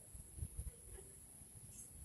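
Quiet pause between sooty-headed bulbul calls: only faint low rumbling and a steady high-pitched hiss from the recording's background.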